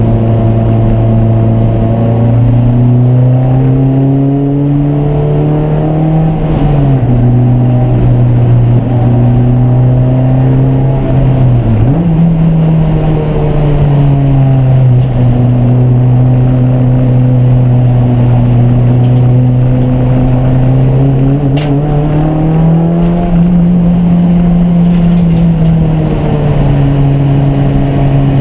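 Race car engine running continuously at moderate revs, its pitch climbing slowly and dropping sharply a few times as it changes gear and slows, with a deep dip and recovery about twelve seconds in.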